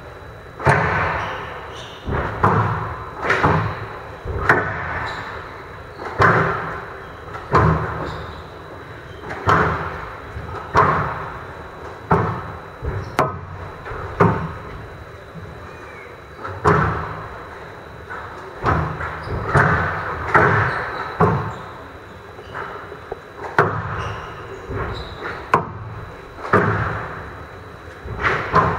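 Squash rally: the ball cracking off rackets and the walls, roughly one hit a second, each hit echoing briefly in the large hall.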